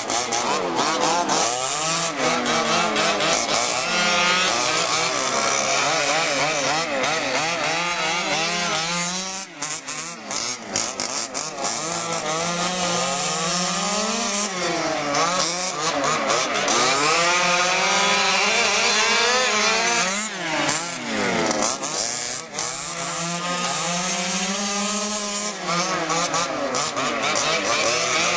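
Small two-stroke gas engines of 1/5-scale HPI Baja RC trucks racing, more than one engine at once, with a buzzing note whose pitch keeps dropping and climbing again as the throttle is eased and reapplied through the turns.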